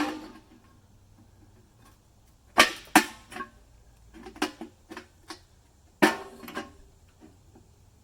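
Metal clanks with a short ring as a steel pipe fitting knocks against a thin sheet-metal fire-pit bowl. There are two sharp knocks about two and a half and three seconds in and another about six seconds in, with lighter taps between.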